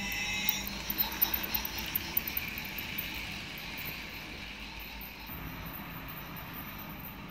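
Battery-powered toy train running on plastic track: a steady motor whir with irregular clicks from the wheels on the track. It is loudest as the train passes close, a few seconds in, then eases off. A held electronic tone stops just under a second in.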